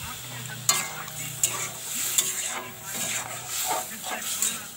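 A metal spatula stirring a simmering potato curry in a metal pot, scraping through the gravy and knocking sharply against the pot several times, over the sizzle of the bubbling gravy.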